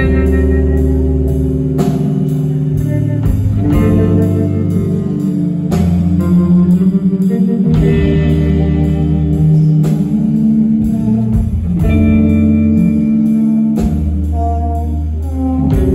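Live band playing a slow instrumental passage: electric guitar chords and lines over bass and keyboards, with a drum kit hitting about every two seconds.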